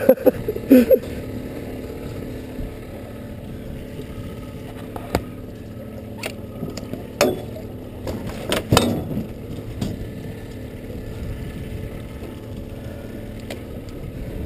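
Scattered clicks and knocks of fishing gear being handled in an aluminium boat: rod, reel and landing net. The loudest group is in the first second and another around the middle, over a steady low drone.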